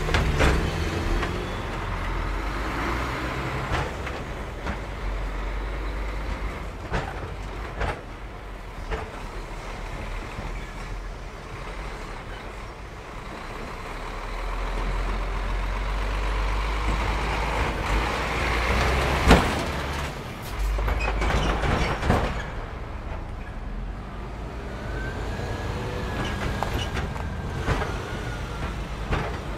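Heavy lorries and vans driving over a railway level crossing at close range: steady diesel engine rumble and tyre noise, broken by repeated sharp knocks as wheels cross the rails. The loudest knock comes about nineteen seconds in.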